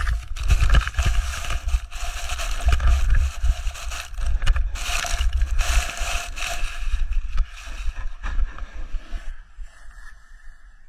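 Snowboarder falling after losing an edge, tumbling and sliding down a snow slope: rushing and scraping of snow and board, with heavy wind rumble on the microphone and scattered knocks. It dies down to a quiet hiss about nine seconds in, as the fall comes to a stop.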